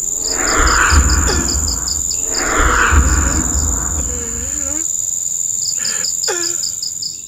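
Night insects: a steady high-pitched drone under a fast pulsing cricket trill that stops for about two seconds in the middle. Over them, two louder noisy swells about two seconds apart, and a man whimpering in fright.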